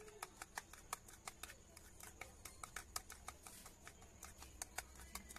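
A metal spoon stirring a thick cream mixture in a small plastic bowl, making faint, quick, irregular clicks and taps as it scrapes against the bowl.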